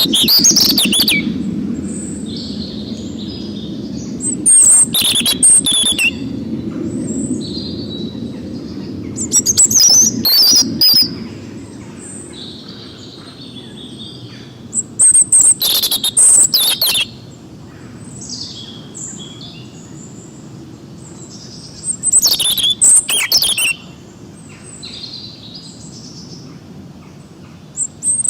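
Wild songbirds singing in a chorus. A loud song phrase of about a second and a half comes back roughly every six seconds, with softer chirps in between over a low, steady background noise.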